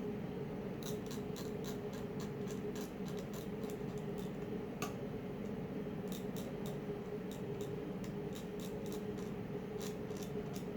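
Steady hum of electronics bench equipment, with bursts of quick, light clicking and scraping as a phone IC is cleaned.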